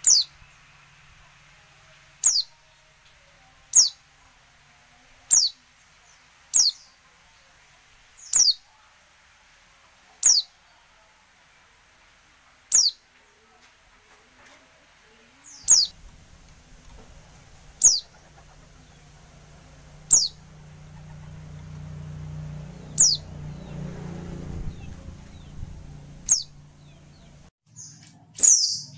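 A female white-eye (pleci) giving single short, high calls that sweep downward, about fourteen of them at irregular intervals of one to three seconds. A low hum runs in the background through the second half.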